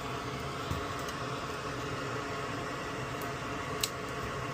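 Steady machine hum and hiss, like a small fan running, with a few light clicks of tools on the circuit board and one sharper click near the end.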